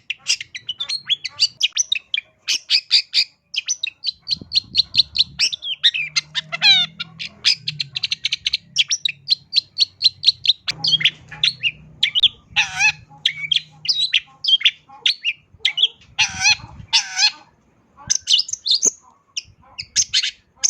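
Long-tailed shrike (cendet) singing a fast, varied song of chattering note series, rapid trills and harsher calls, packed with mimicked phrases of other birds ('full isian'). A short pause comes about three-quarters of the way through.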